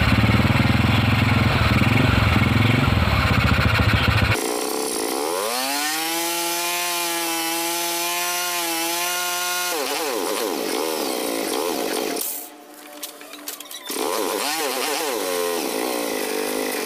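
Honda Supra X125 (Karisma) single-cylinder engine running steadily as its carburettor air screw is being set. About four seconds in, the engine sound cuts off abruptly and a sustained pitched sound with wavering notes takes over, like background music.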